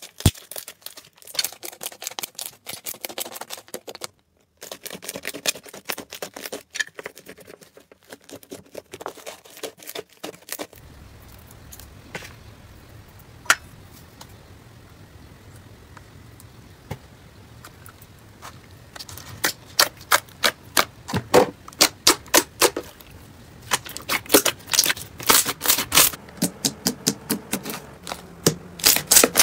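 Crunchy slime being squeezed and pressed by hand, making quick runs of sharp crackles and clicks. The clicks thin to scattered single pops in the middle stretch and turn dense again near the end.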